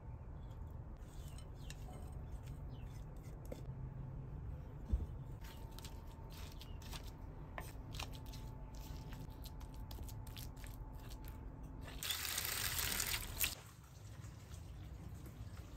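Wooden spoon stirring and scraping a wet walnut-and-pomegranate-paste filling in an unglazed clay bowl, heard as a run of small clicks and squishes. About twelve seconds in comes a brief loud hiss, then faint water trickling near the end.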